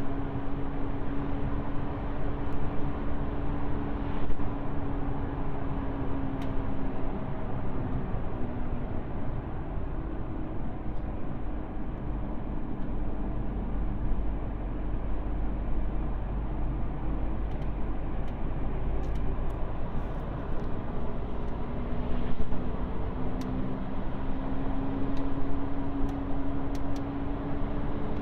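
Worn front wheel bearing on an Alfa Romeo 159 2.4 JTDm droning while the car is driven, over tyre and road rumble. The hum falls in pitch and fades out about eight seconds in, then returns and rises in pitch near the end, following road speed.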